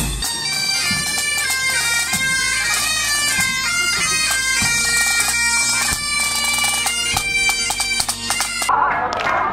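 Pipe band marching past: Highland bagpipes playing a stepping melody over their steady drones, with snare and bass drum strokes. Near the end the pipes cut off abruptly and different music takes over.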